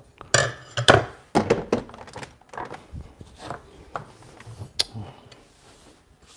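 A series of knocks and clicks as espresso tools and the portafilter are handled on a countertop and the portafilter is locked into the group head of a Breville Barista Pro espresso machine. The loudest knocks come in the first two seconds, and there is a sharp click a little under five seconds in.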